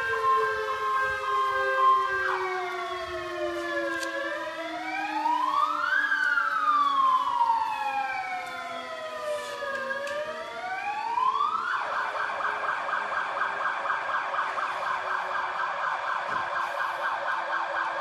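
Fire engine sirens. A steady alternating two-tone runs for the first couple of seconds, then a slow wail that rises and falls about every four seconds, switching about two-thirds of the way through to a fast yelp. Underneath, a lower steady tone slowly sinks in pitch.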